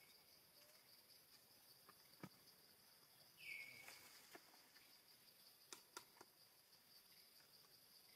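Near silence: faint forest ambience with a steady high insect drone, one short high call falling in pitch about three and a half seconds in, and a few faint ticks.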